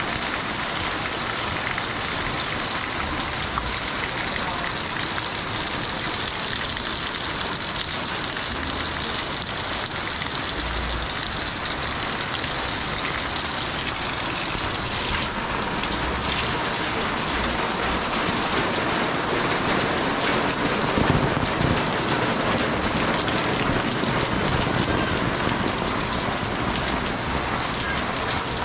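Heavy rain falling steadily on roofs and a wet concrete alley, with runoff pouring off the eaves and splashing. The hiss turns slightly duller about halfway through.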